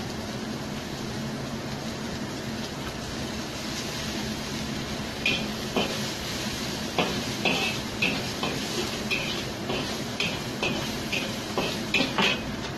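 Metal spatula scraping and clinking against a wok while garlic, shallots and chili are stir-fried, over a steady low hum. The strokes come sparsely at first, then several times a second from about five seconds in.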